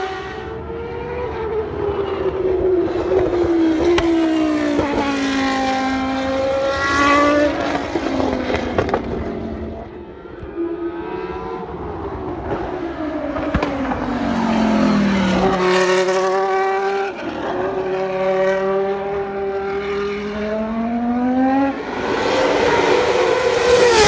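A former Formula One car's V10 engine running at high revs around the circuit. Its pitch climbs through each gear and steps down at each shift, sweeps down under braking, then holds steadier. It grows louder near the end as the car comes past.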